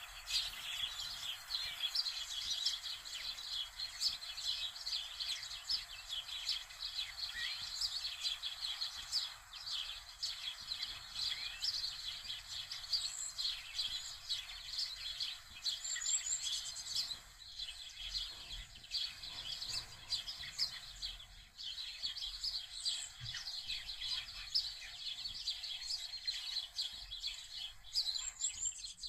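Many small birds chirping continuously, a steady twittering chatter with an occasional higher chirp standing out.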